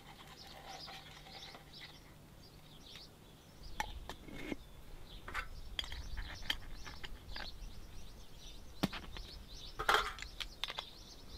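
Birds chirping, with scattered small metal clicks and clinks as a stainless steel hand coffee grinder is handled and its lid and crank handle are fitted, with a sharper clink about ten seconds in.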